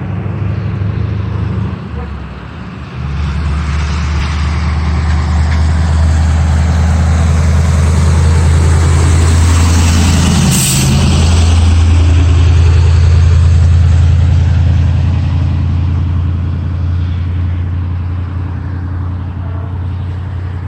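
Road traffic: a heavy vehicle's engine running with a steady low hum close by, and a vehicle passing about ten seconds in.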